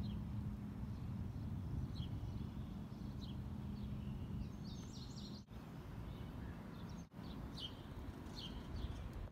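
Outdoor ambience: a steady low rumble with short bird chirps scattered throughout and a busier burst of chirping about halfway through.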